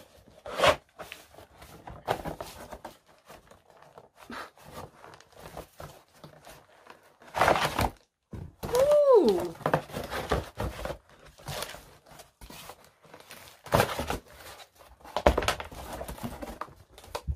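Plastic packaging crinkling and rustling as dumbbell-stand parts are unwrapped and handled, with irregular clicks and several louder knocks of the parts. A short falling tone sounds about nine seconds in.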